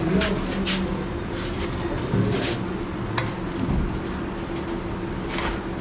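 Steady background hum of a busy dining hall, with several short sharp clinks of a metal serving spoon against a steel bowl as curry is served onto a plate of rice.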